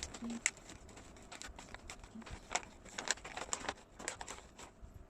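Brownie packaging being handled and opened, crinkling with a scatter of sharp crackles.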